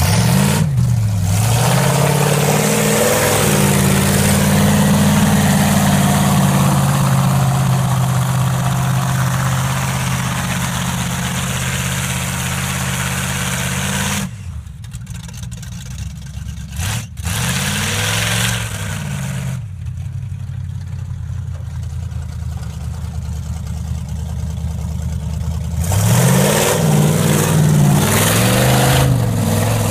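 383 stroker small-block Chevy V8 in a lifted mud truck, revving hard again and again, its note climbing and dropping with each blip of the throttle. It fades for a stretch in the middle as the truck drives far off, then comes back loud with more revving near the end.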